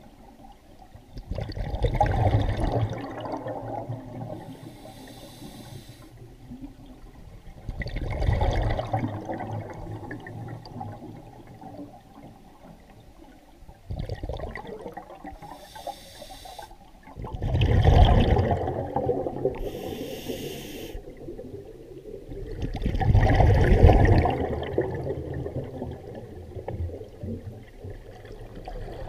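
Scuba diver breathing through a regulator underwater: a short hissing inhale through the regulator, then a loud rush of exhaled bubbles, repeating every several seconds with four exhalations.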